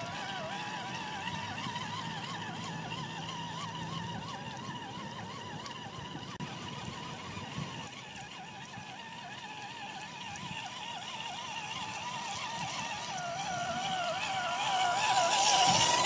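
Electric motor and drivetrain of an Axial SCX10 Deadbolt RC crawler whining, the pitch rising and falling with the throttle. A louder rush of noise near the end.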